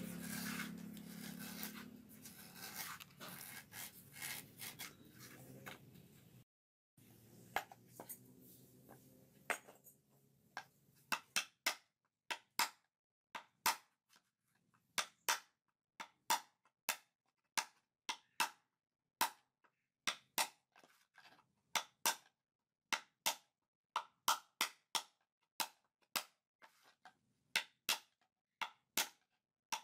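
Rough scraping and carving on a coconut at first, then, after a short break, a steady run of sharp knocks, about three every two seconds, as a chisel is jabbed down into the inside of a whole coconut to hollow it out.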